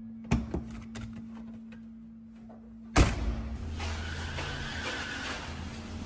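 Two light knocks, then a car door shutting with a loud thud about three seconds in. A vehicle runs with a steady low hum after it.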